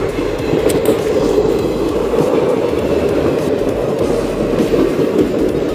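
Passenger train coaches rolling past at speed, a steady, loud rumble of wheels on rails.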